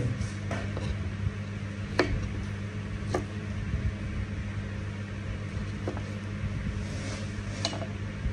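A kitchen knife cutting limes on a wooden chopping block, giving about half a dozen short, sharp knocks at uneven intervals, the clearest about two, three and near eight seconds in. A steady low hum runs underneath.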